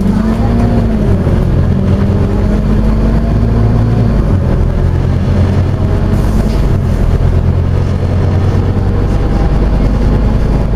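Scania OmniCity bus's diesel engine running under way, heard from inside the passenger cabin with road and tyre noise, its pitch dipping about a second in and then holding steady.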